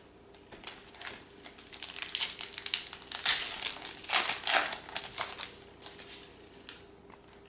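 Crinkling and crumpling of a foil trading-card pack wrapper being handled, a dense run of crackly rustles for a few seconds.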